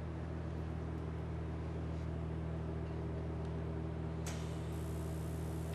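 TIG welder humming steadily; about four seconds in, the arc strikes on tool steel and a steady high hiss joins the hum.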